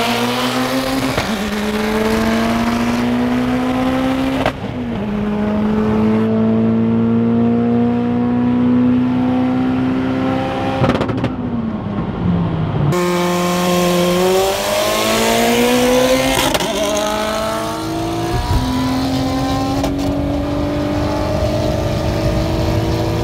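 Turbocharged car engines of a single-turbo BMW 135i and an Evo X accelerating hard at full throttle, the pitch climbing through each gear and dropping briefly at upshifts. The sound breaks off abruptly twice as the footage changes, and the pitch falls away once just before the second break as the throttle is lifted.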